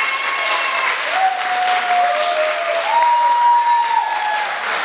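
Audience applauding steadily, with several long held tones over the clapping from about a second in until near the end.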